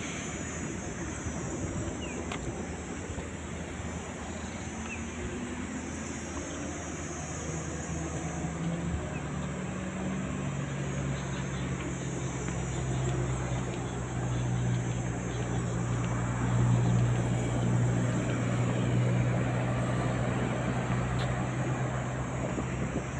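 Outdoor background noise with a low, steady engine drone that comes in about ten seconds in and grows louder toward the end.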